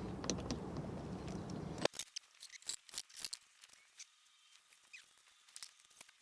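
A steady background noise that cuts off abruptly about two seconds in, followed by scattered light clicks and taps.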